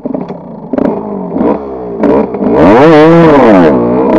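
Kawasaki KX125 two-stroke single-cylinder dirt bike engine, coming in suddenly with a few uneven blips of throttle, then revving up and down under way on a dirt track, the pitch rising, dropping and rising again in the second half.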